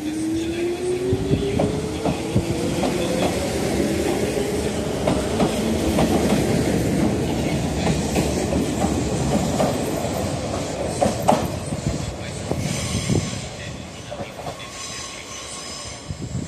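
Izuhakone Railway 3000-series electric train pulling out. Its motors whine steadily higher in pitch as it gathers speed, over a run of clicks from the wheels crossing rail joints. The sound fades as the train draws away, and near the end there is a high wheel squeal.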